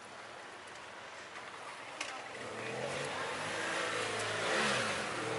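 A car engine, rising in loudness from about two seconds in, with a low hum whose pitch bends near the end as it passes.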